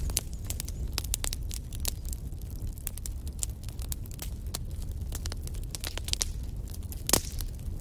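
Wood fire burning in a fireplace, crackling with many irregular small pops over a low rumble, with one louder pop about seven seconds in.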